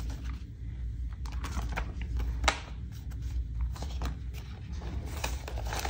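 Paper bills and binder pages being handled, with soft rustles and scattered light taps and clicks, over a steady low hum.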